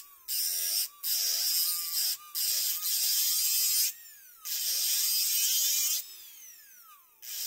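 Marathon micromotor handpiece cutting agate with a small diamond disc, in five separate bursts of gritty grinding. The motor's whine glides up and down in pitch as the cutting pressure changes: the control unit raises the speed the harder the disc is pressed.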